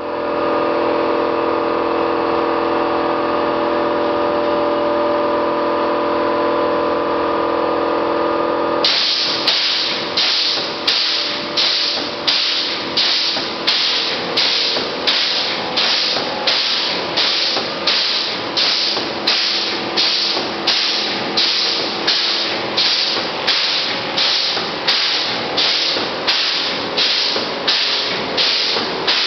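Car-wash foam machine running with a steady hum. About nine seconds in, foam starts spraying: a loud hiss that pulses evenly about one and a half times a second, in step with the pump.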